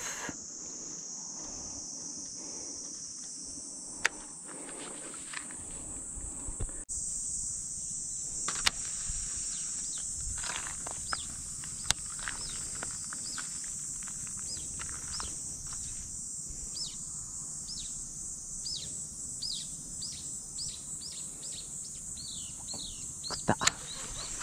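Steady high-pitched insect buzz. In the second half a bird repeats short falling chirps about twice a second, with a few sharp clicks scattered through.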